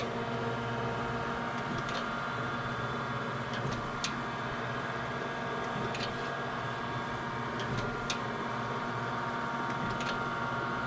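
Heald 273A universal grinder running in auto feed: a steady machine hum with a sharp click about every two seconds as the table reaches the end of its stroke and the cross-feed ratchets in.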